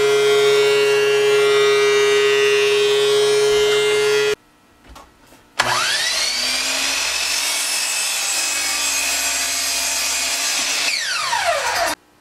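Benchtop thickness planer running with a steady whine. Then a miter saw's motor spins up with a rising whine, runs steadily for about five seconds, and winds down with a falling whine near the end.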